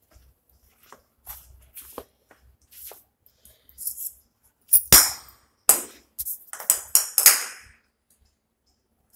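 Irregular taps and clicks on a hard marble floor as a small puppy plays. The sharpest tap comes about five seconds in, followed by a quick run of clicks and scuffs.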